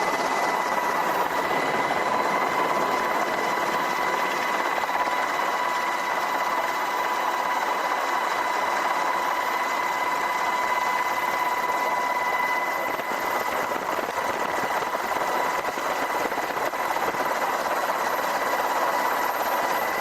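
MH-60S Seahawk helicopter running steadily, a dense rushing noise with a steady high whine on top.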